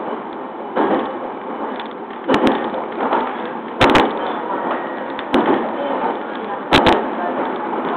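Inside the motor car of a JR East E721-series electric train running at speed: steady rolling and running noise, with sharp clacks of the wheels over rail joints about every one and a half seconds, several as quick double clacks.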